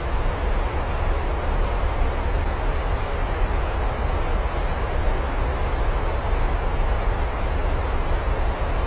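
Steady rain, an even continuous hiss over a deep low rumble.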